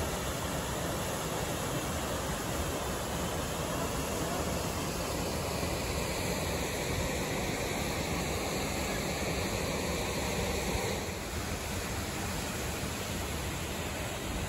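Steady rushing of a mountain stream running over rocks, dropping slightly in level about eleven seconds in.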